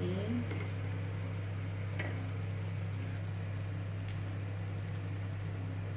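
Butter sizzling as it melts in a frying pan over a low gas flame, over a steady low hum. A single light click about two seconds in.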